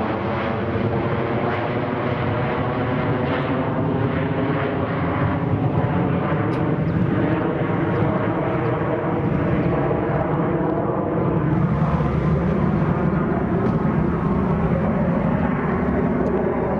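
Jet engines of a twin-jet airliner with tail-mounted engines, climbing out just after takeoff: a steady, unbroken engine noise with a stack of humming tones layered over it, growing slightly louder about twelve seconds in.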